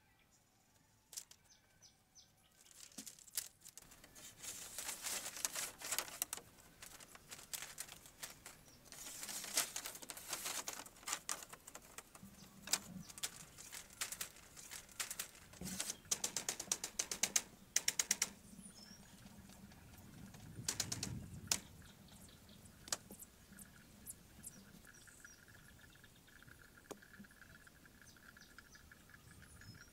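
Bamboo poles and slats clattering and knocking as they are handled and set in place, in bursts of quick rattling clicks, with a few single knocks later. Near the end a faint steady insect trill comes in.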